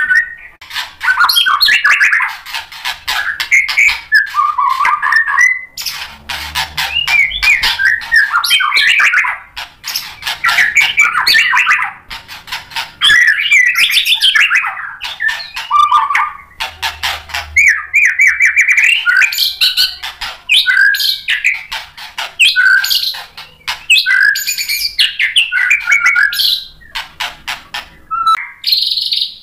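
White-rumped shama (murai batu) singing loudly: a long, varied run of fast whistles, chatters and rattling notes in phrases broken by brief pauses, ending just before the close.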